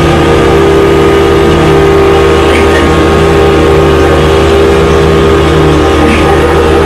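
Vacuum cleaner running loudly and steadily, its motor giving a constant droning hum.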